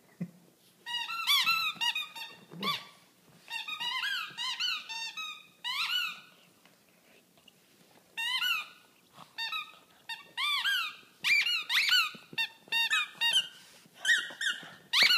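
Squeaky bone toy squeaked over and over in a Boston terrier's jaws as he chews it: quick runs of high squeaks, each rising and falling in pitch, with a pause of about two seconds midway.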